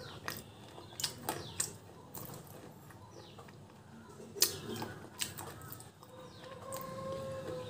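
Crisp crunches of a red slate bar being chewed: a few sharp cracks at irregular intervals, the loudest about four and a half seconds in. Near the end a rooster crows once, a long even call.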